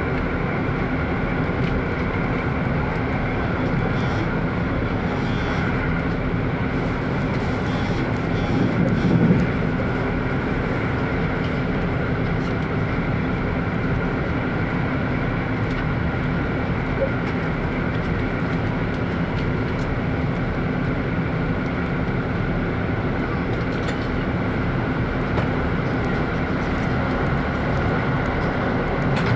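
Running sound of a KiHa 85 series diesel limited express (Wide View Hida), heard from inside the passenger car: a steady rumble of wheels on rail with the engine drone held at a constant pitch. About nine seconds in there is a brief louder rush.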